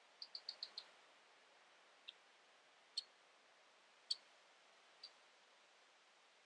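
Faint, short, high chirps of a small bird: a quick run of five, then four single chirps about a second apart, over a faint steady hiss.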